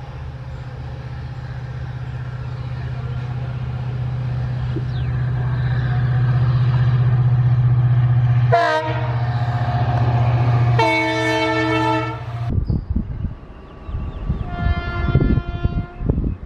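EMD WDP-4 diesel locomotive's two-stroke engine running under power, its steady low drone growing louder as it approaches, with a short horn blast about eight and a half seconds in and a longer one near eleven seconds. About twelve seconds in the sound switches to an electric locomotive's wheels rumbling and clattering over the rails, with its horn sounding near the end.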